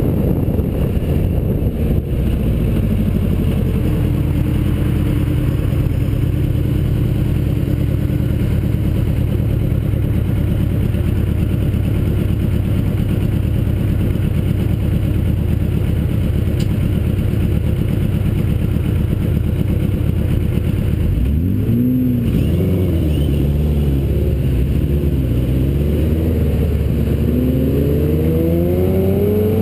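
Suzuki GS850's air-cooled inline-four engine running low and steady, at idle while the bike waits in traffic. After about twenty seconds come a few short revs that rise and fall, and near the end the revs climb as the bike pulls away.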